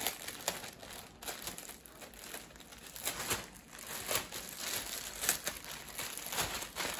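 Clear plastic packaging crinkling as it is worked and pulled open by hand, in irregular crackles with a few sharper rustles.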